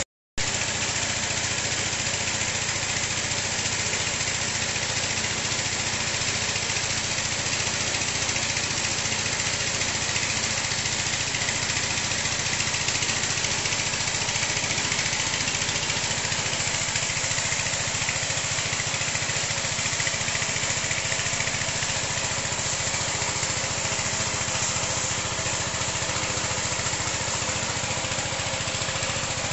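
Small petrol engine running steadily, driving a high-pressure power sprayer pump, with the continuous hiss of the water jet blasting the slatted floor and drinker lines.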